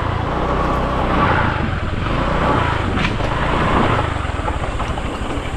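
Motorbike engine running while riding along a road, with a steady rush of wind and road noise.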